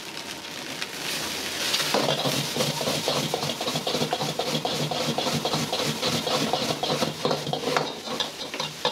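Metal ladle scraping and knocking against a wok as fried rice is stir-fried and tossed. The scraping turns quicker and louder about two seconds in.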